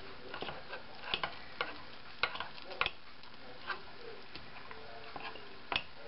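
A metal spoon stirring thick biscuit batter in a ceramic mug, clinking and scraping against the inside of the mug in irregular light clicks.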